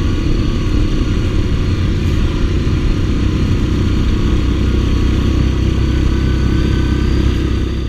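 ATV engine running at a steady pace while the quad rides along a rough, muddy dirt trail.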